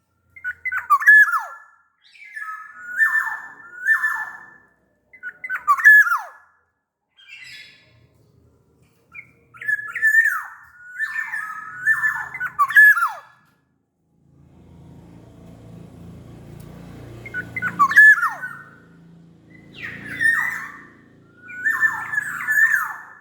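Black-naped oriole (Sumbawa kepodang) singing: short, fluty, whistled phrases with notes that slide sharply downward, repeated in quick runs with brief pauses between.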